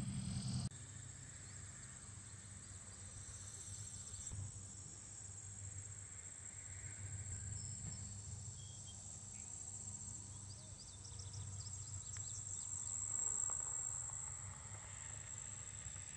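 Insect chorus: a steady high-pitched trill, over a low hum. A louder low rumble cuts off abruptly under a second in.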